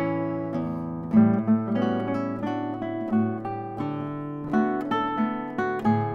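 Two classical guitars playing a habanera duet: plucked melody notes over a bass line that repeats in the habanera rhythm.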